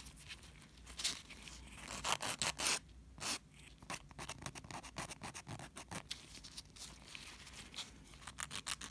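180-grit hand nail file scraping back and forth over a sculpted acrylic-gel nail tip, in a run of short, uneven strokes as the surface is smoothed.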